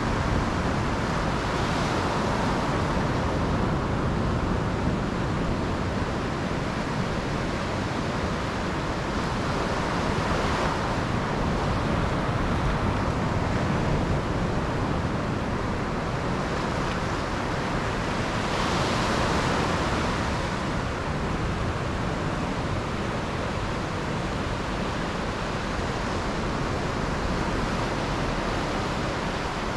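Sea surf breaking and washing up a sandy beach among rocks: a steady rush of water that swells as bigger waves break, about 2, 10 and 19 seconds in.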